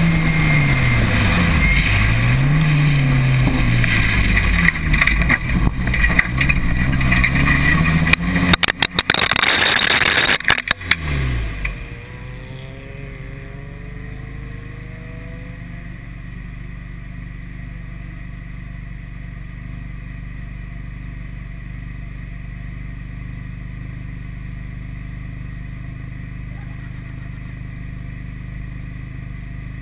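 Toyota MR2 Turbo's turbocharged four-cylinder engine revving up and down through a corner. The car then runs off into a gravel trap, where stones clatter loudly against the underside for about three seconds and the engine falls away. After that the engine idles steadily while the car sits stopped in the gravel.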